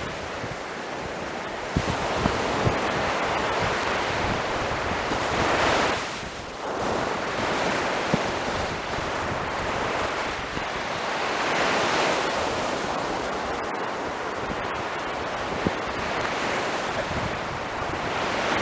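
Ocean surf breaking on a sandy beach, a steady rush that swells and eases every few seconds as waves come in.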